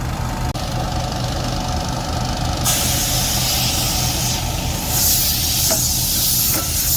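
Diesel engine idling with a low steady hum. About a third of the way in, a loud hiss of compressed air escaping from the truck's air brake system starts and carries on.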